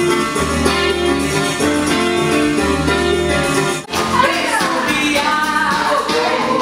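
Background music, an instrumental passage over a repeating bass line that breaks off about four seconds in and gives way to a singing voice.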